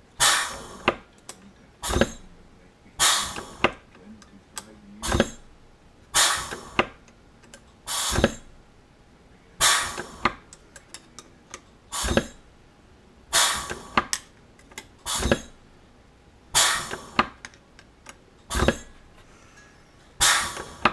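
Bench-mounted pneumatic squeezer with dimple dies pressing dimples into the rivet holes of an aluminium flap part: a sharp clunk with a short fading hiss about every second or so, some strokes in quick pairs.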